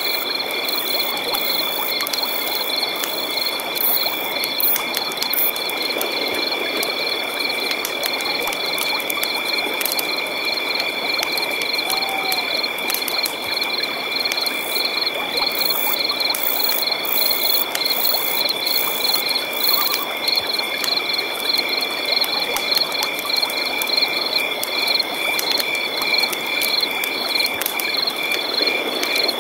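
Night-time chorus of frogs and insects: several high, continuous trills at different pitches, some pulsing rapidly, over a steady hiss.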